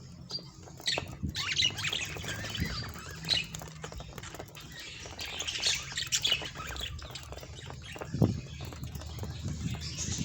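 Pet budgerigars chirping and chattering with many short warbling calls, with scattered clicks.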